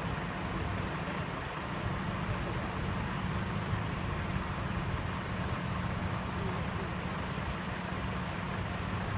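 Steady low rumble of vehicle engine and road noise, with a thin high-pitched squeal lasting about three seconds in the second half.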